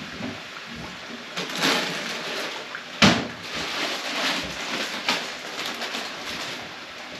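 Steady hiss of chicken deep-frying in oil, with kitchen handling noises on top: a sharp knock about three seconds in and a few smaller knocks and rustles.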